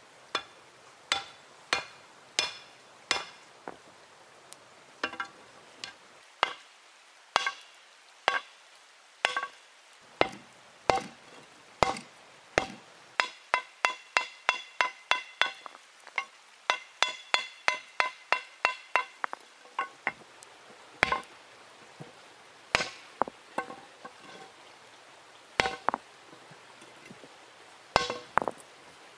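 A hand-held stone used as a hammer, forging red-hot steel on a stone anvil. Spaced single blows give way to a quick run of about three blows a second through the middle, then spaced blows again. Each blow is a sharp knock with a short metallic ring.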